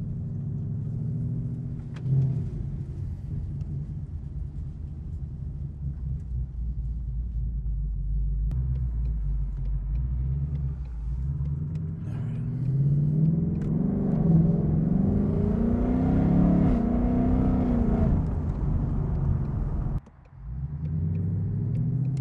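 2020 Mustang GT's 5.0 V8, with an H-pipe and an E85 tune carrying a ghost cam, running steadily, then its pitch climbing and falling several times as it is revved and pulled harder. The sound drops away briefly near the end, then the engine returns.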